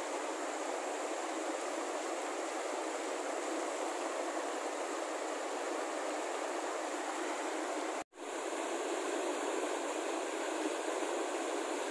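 Rushing mountain stream running over rocks and rapids: a steady, even rush of water that cuts out for an instant about eight seconds in.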